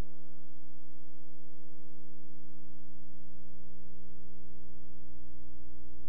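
Steady electrical hum with a stack of overtones, a thin high whine and faint hiss, unchanging throughout: line noise on the soundtrack of a silent film transfer, with no sound from the scene itself.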